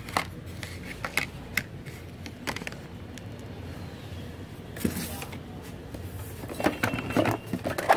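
Scattered light clicks and knocks of hands handling an inkjet printer's plastic casing, with a short scrape about five seconds in.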